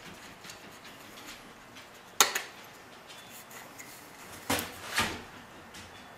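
Wooden board pieces handled and knocked on a workbench: one sharp click about two seconds in, then two duller knocks half a second apart near the end, over quiet room tone.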